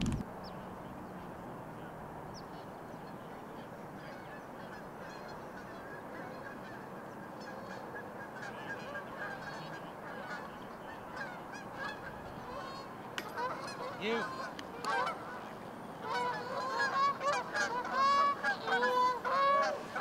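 A flock of geese honking: scattered faint calls from about eight seconds in, building near the end into many loud, overlapping honks.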